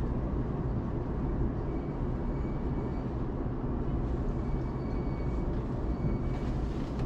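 Steady rumble of a JR Ome Line electric commuter train running, heard from inside the carriage, with a faint high whine in the middle.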